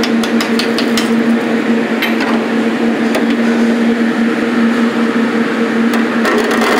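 A metal spoon clinking and scraping against a large stainless steel stock pot while stirring soup: a quick run of clinks in the first second, a few more around two and three seconds, and a cluster near the end. Under it runs a steady kitchen hum with a rushing noise.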